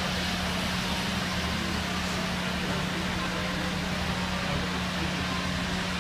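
A steam-hauled train standing at the platform: a steady hiss with a low, steady hum underneath.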